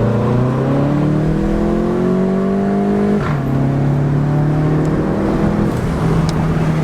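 Volkswagen Golf GTI MK7's 2.0-litre turbocharged four-cylinder engine pulling under acceleration, its pitch climbing steadily, then dropping suddenly about three seconds in at an upshift before climbing again and levelling off.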